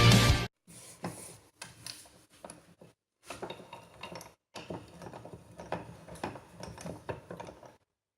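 Metal clinks, taps and knocks from a rusty bench vise and its parts being handled, in irregular clusters with short pauses.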